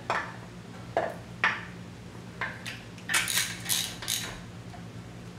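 Metal clinks of hand tools on a Volkswagen Type 1 engine's crankcase nuts: a few separate clicks, then a quick run of ratchet wrench clicks from about three seconds in as the case-half nuts are tightened.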